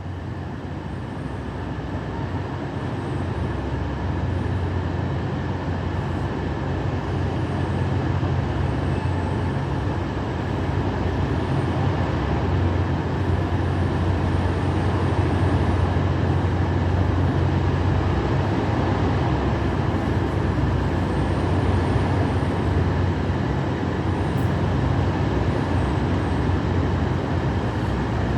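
English Electric Class 37 diesel locomotive's V12 engine working hard as the train pulls away, a steady deep engine note that grows gradually louder over the first fifteen seconds or so and then holds.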